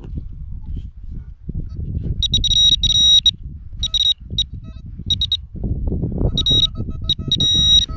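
Metal detector giving repeated high beeps in short bursts, signalling a buried metal target, over continuous low rumbling noise.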